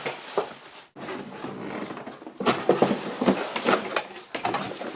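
Packaging being handled during unboxing: irregular knocks and rustles of cardboard and parts being moved, with a brief dropout about a second in and a busier flurry of knocks in the middle.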